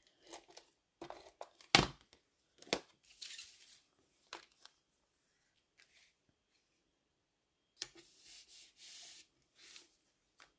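Card stock being handled on a glass craft mat: a few sharp taps and knocks, the loudest about two seconds in, with brushy paper rustles, a longer one near the end as the card slides across the mat.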